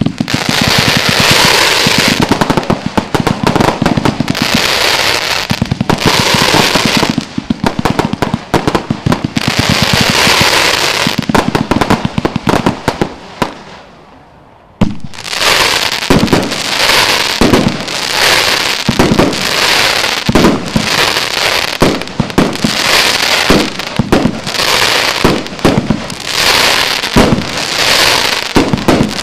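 Rubro Event Horizon Z-3, a 104-shot fireworks cake box, firing: a dense rapid run of launches and bursts that dies away about eleven seconds in. A few seconds later a new run of shots starts, about two a second, with crackle between them.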